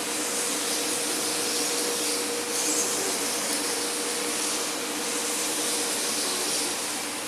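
DMS 5-axis CNC router running: a steady machine hiss with a constant hum, swelling slightly a couple of times.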